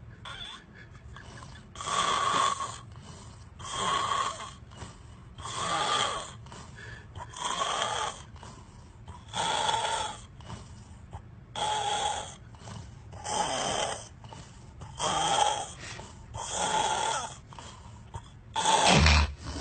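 A person snoring loudly and rhythmically, about one snore every two seconds, with a louder, harsher burst right at the end.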